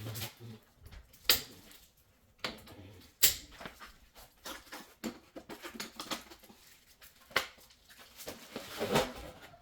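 Scattered sharp clicks and knocks, four of them loud, among lighter handling rustles, with a longer scraping rustle that builds to a peak near the end.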